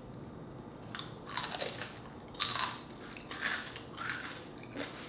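Crispy, deep-fried pork leg skin (crispy pata) being bitten and chewed: a run of crunches starting about a second in, the loudest about two and a half seconds in.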